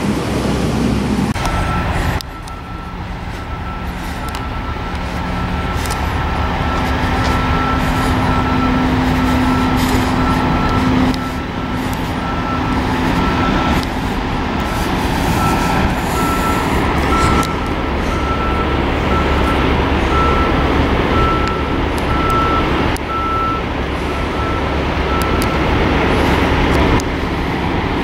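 A truck's reversing alarm beeps steadily, about once a second, over the continuous low rumble of heavy diesel truck engines running at a frack site.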